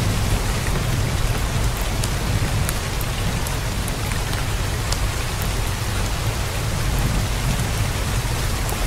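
Steady heavy rain, with single drops ticking sharply over it. A low thunder rumble dies away in the first second and a softer low rumble stays under the rain.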